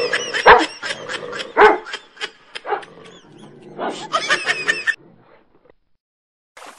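Puppy yipping and barking in short, high-pitched bursts, stopping about five seconds in.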